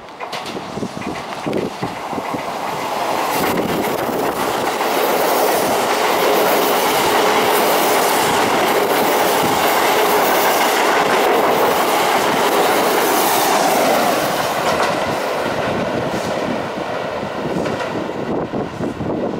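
Keisei AE100 series electric train running through the station at speed without stopping. It grows louder over the first few seconds as it comes alongside, holds loudest for several seconds as the cars pass, then eases off after about fourteen seconds.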